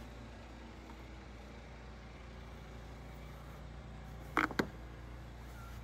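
A steady low hum, with two sharp knocks close together about four and a half seconds in.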